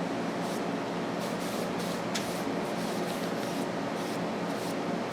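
Paintbrush swishing wood stain onto a board in short, irregular strokes, over a steady background hiss.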